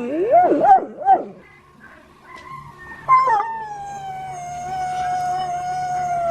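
Dog howling: a quick warbling howl that wavers up and down in pitch, then after a short pause one long, steady howl held for about three seconds.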